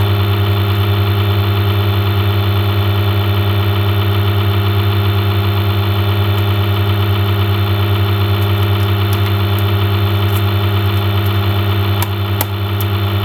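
Loud, unchanging low electrical hum with a buzzing edge, typical of mains hum picked up in the recording. A few light clicks near the end.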